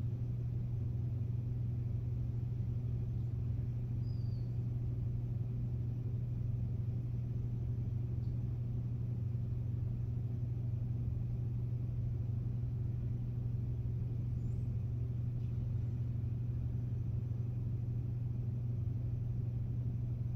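A steady low hum that holds one pitch and level, with no other clear sound.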